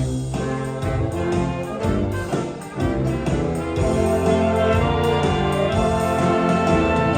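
An orchestra playing, with brass prominent, in long held chords.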